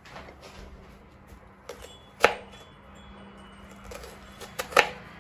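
Kitchen knife cutting small red onions on a wooden chopping board: a few sharp knocks of the blade striking the board, one about two seconds in and a quick group of three near the end.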